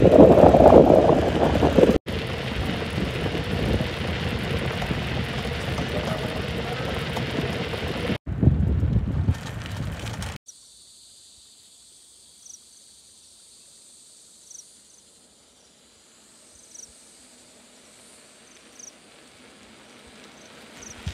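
Wind buffeting the microphone of a camera riding along on a moving bicycle: a loud, even rushing noise, broken by abrupt cuts. About ten seconds in it gives way to quiet outdoor ambience with a faint high steady drone and a few short faint chirps.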